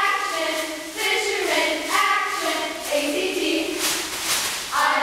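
Two girls' voices chanting a cheer together in loud, drawn-out sung-out phrases, with a few sharp pom-pom rustles near the end.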